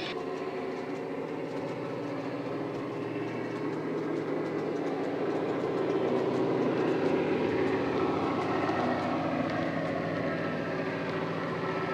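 Dapol Class 68 model locomotive's Coastal DCC sound file playing through an EM2 speaker: the Class 68 diesel engine running steadily with a deep bass. It grows louder as the loco comes nearer, and a higher whine shifts in pitch in the later seconds.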